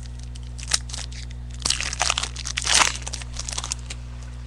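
Crinkling and crunching of a trading-card pack wrapper being handled and opened, a run of rustles loudest about three seconds in, over a steady low hum.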